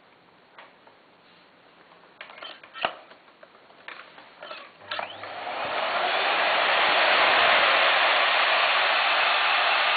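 A few clicks and knocks of handling, then a Miele S744 canister vacuum cleaner's motor is switched on about five seconds in and winds up over a second or so into a steady loud run.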